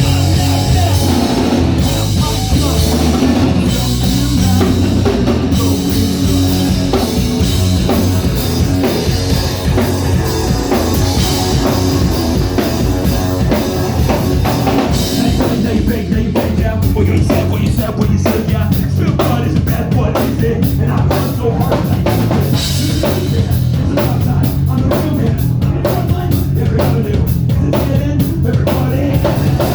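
Live rock band playing loud: distorted guitars, bass and drum kit in an instrumental stretch of the song, with a fast, driving drum beat from about halfway through.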